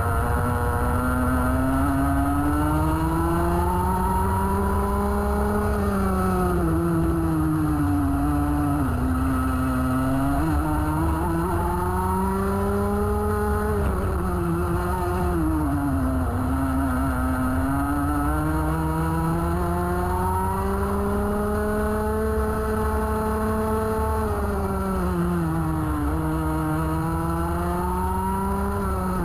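Rotax Max 125 cc two-stroke kart engine heard onboard at racing speed. Its pitch climbs steadily on the straights and drops sharply several times as the throttle comes off for the corners, over a steady low rumble.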